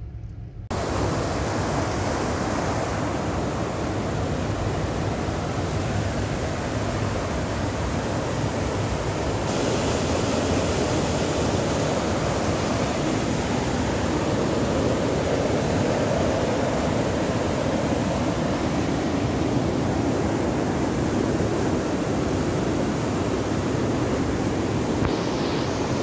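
Mountain stream rushing and cascading over rocks in white water: a loud, steady rush that cuts in abruptly just after the start and grows hissier about ten seconds in.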